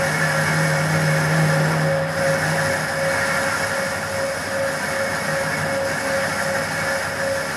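Centre lathe running with its spindle turning during a facing cut, the tool held against the workpiece's end face: a steady mechanical whir and hum. A low hum drops away about a third of the way in.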